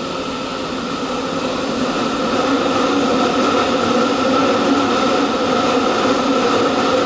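Cabin noise of a Fukuoka City Subway Hakozaki Line train under way: a steady rumbling hum from the running gear. It grows louder over the first few seconds and then holds steady.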